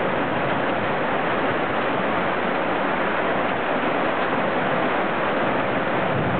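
Rain falling steadily: an even, unbroken hiss with no thunderclaps.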